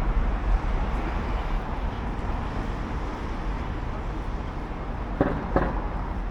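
Outdoor urban background noise: a steady low rumble of traffic, with two short knocks about five seconds in.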